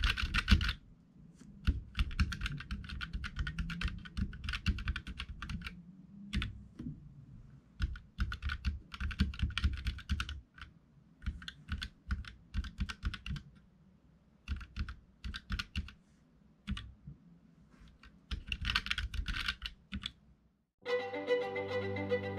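Typing on a Keychron K3 low-profile keyboard with linear red Gateron switches: runs of quick key clicks in bursts of a second or a few seconds, broken by short pauses. Near the end, violin music begins.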